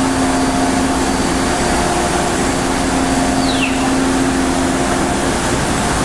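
Thermwood CNC router running steadily while machining hinge-plate pockets in solid wood: a steady spindle hum over a loud, even rushing noise. A short falling whistle sounds a little past halfway.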